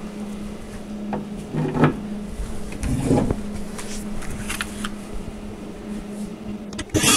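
Light knocks and clicks of screws being set into a storage unit's side panel and a cordless drill being picked up; near the end the cordless drill runs, driving a screw into the panel.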